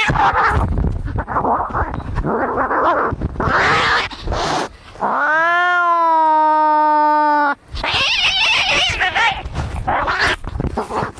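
Cats fighting: harsh, noisy hisses and spits, then one long held yowl about five seconds in that lasts some two and a half seconds, followed by more harsh screeching.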